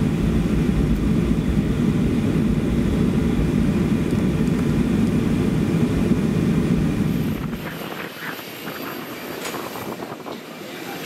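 Boeing 737-400 cabin noise from a window seat over the wing while taxiing, its CFM56-3C1 engines running at taxi power as a steady low rumble. About seven and a half seconds in this gives way to much quieter background with a few light knocks.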